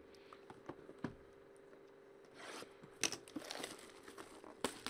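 A cardboard trading-card box and cards being handled: light sliding and rustling with scattered small taps, a denser patch of rustling about three seconds in, and a sharp tap near the end, over a faint steady hum.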